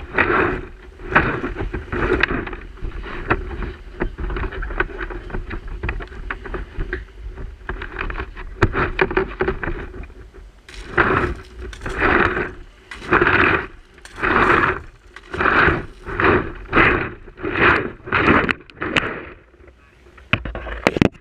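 Kayak paddle strokes splashing in the water, falling into an even rhythm of about one stroke a second in the second half, over a steady low rumble of wind on the microphone.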